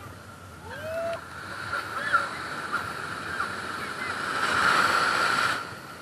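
Sea surf on a sandy beach, with a few short calls rising and falling in pitch in the first half. Near the end a wave swells into the loudest rush, then stops abruptly.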